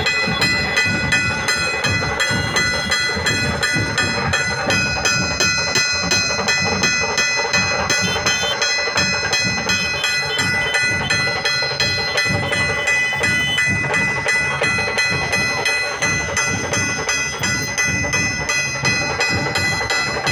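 Dhol-tasha troupe drumming: big barrel dhols and tasha drums beat a fast, even rhythm, with a constant metallic ringing over it.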